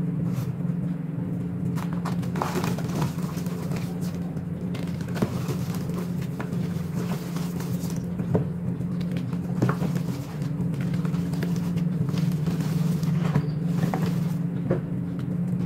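Gym chalk blocks coated in cornstarch paste being crushed and crumbled by hand, giving irregular soft crunches and crackles over a steady low hum. The audio is sped up.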